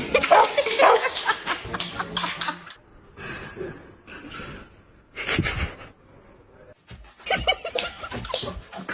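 Laughter in bouts: a long stretch at the start, a short burst about five seconds in, and more laughter from about seven seconds on.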